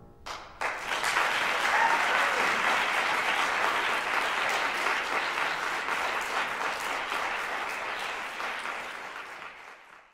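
Audience applause, starting with a couple of scattered claps, filling out within about a second, then slowly thinning before it cuts off near the end.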